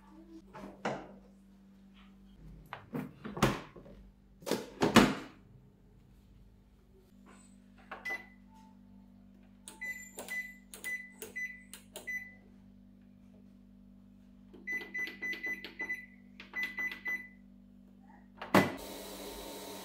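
Sharp front-loading washing machine being set: a few knocks and a thump, then its control panel gives runs of short high beeps with clicks as the program dial is turned and buttons pressed. Near the end a sharp click, then a steady hiss as the machine starts.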